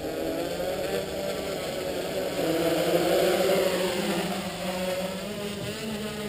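Talon Hex hexacopter's six brushless motors and propellers spinning up for takeoff, a steady buzz with several pitches at once. It grows louder about three seconds in as the craft lifts off the pavement, then eases a little in a low hover.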